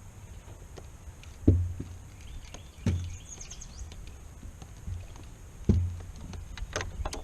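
Dull thumps and light clicks of fishing tackle being handled in a small boat: three heavier knocks, then a quick run of sharp ticks near the end.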